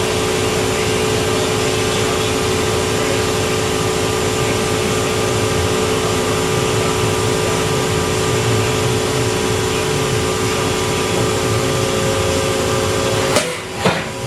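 Steady machine-shop machinery noise with a constant hum, dipping briefly near the end with two sharp clicks.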